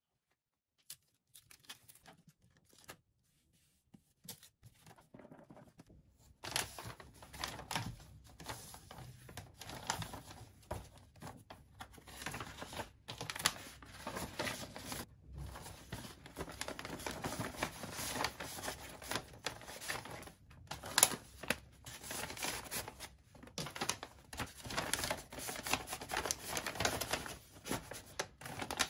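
Paper rustling and crinkling as a hand-drawn paper blind bag is opened and its paper sheets handled, full of small sharp clicks and crackles. It is nearly quiet at first, with a few isolated clicks, and the handling sets in about six seconds in, with one sharper crack about two-thirds through.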